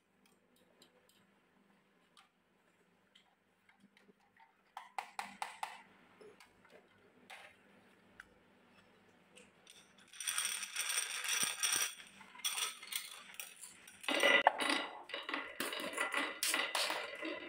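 Glass marbles clicking and clattering against each other and a grooved wooden marble-run rail as they are handled and set in place, in dense runs of sharp clacks about ten seconds in and again from about fourteen seconds in. Before that, only a few faint ticks and clicks.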